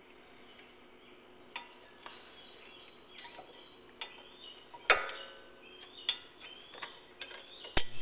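Pad retaining pin and spring clip being worked into a Porsche 997 rear brake caliper: scattered light metallic clicks and taps, with two sharper clicks that ring briefly, about five seconds in and near the end.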